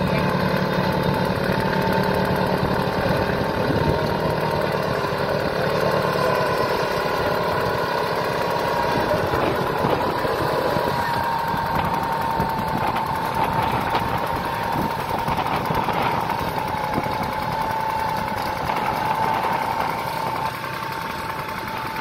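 Simar two-wheel garden tractor's engine running steadily under load as it pulls a plough through the soil, with a steady high whine over the engine note.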